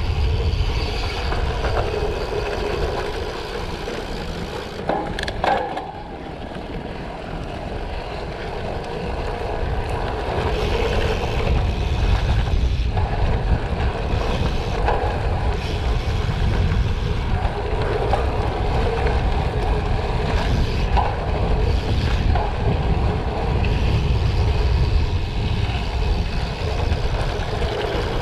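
2021 Specialized Diverge Comp Carbon gravel bike rolling over a gravel road: steady tyre noise mixed with wind rushing across the camera microphone. There are a couple of sharp clicks about five seconds in.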